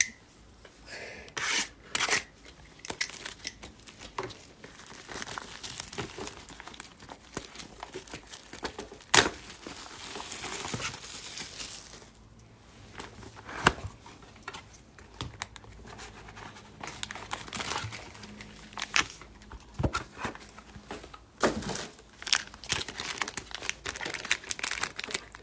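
A trading-card pack wrapper being handled, torn open and crinkled, with scattered sharp crackles and clicks and a denser stretch of crinkling around the middle.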